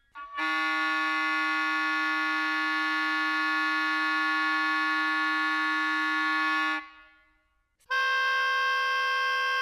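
Recorded oboe multiphonics played back. One multiphonic, several tones sounding at once, is held for about six seconds and cuts off suddenly. After a one-second gap, a second multiphonic begins near the end.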